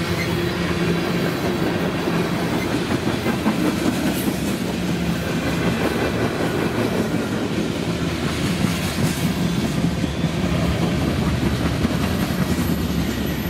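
Freight cars of a passing manifest train (tank cars, covered hoppers, boxcars) rolling by at trackside, their steel wheels on the rails making a steady rolling rumble.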